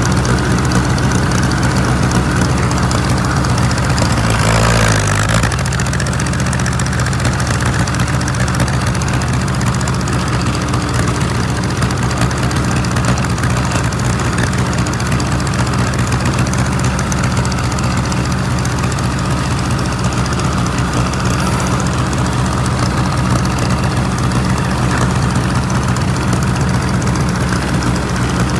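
1954 Oliver Super 55 tractor's four-cylinder engine running steadily as the tractor drives along, with a brief louder patch about four seconds in.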